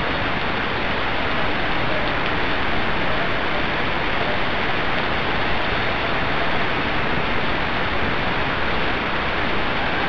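Heavy rain falling steadily on a cobbled street and roofs, a dense, even hiss with no break.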